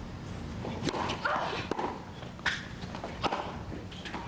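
Tennis ball being hit with rackets and bouncing on a hard court during a serve and rally: a series of sharp pops, about one every second. There is a brief squeak about a second in.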